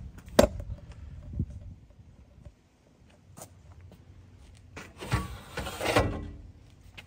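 Tools handled in a metal truck service-body compartment: a sharp knock about half a second in as the heavy impact wrench is set down, a lighter knock a second later, then about a second of rattling clatter near the end as a cordless bandsaw is pulled off a shelf.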